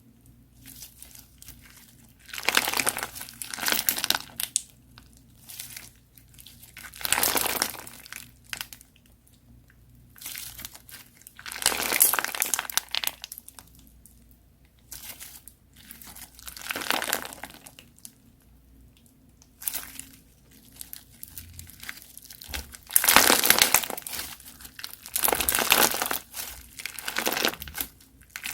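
Crunchy slime being pressed and squeezed by hand, crackling and crinkling in bursts of about a second every few seconds, with a longer run of crackling near the end.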